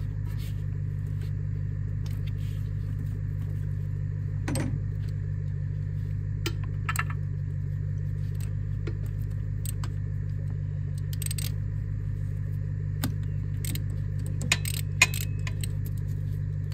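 Scattered light metallic clinks of hand tools working on the engine, over a steady low hum.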